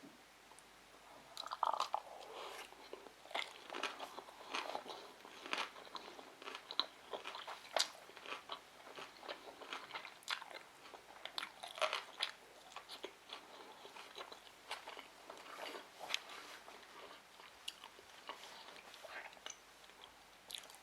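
A person chewing and biting sushi rolls: irregular crunches and wet mouth clicks, beginning with a louder bite about a second and a half in and carrying on steadily until near the end.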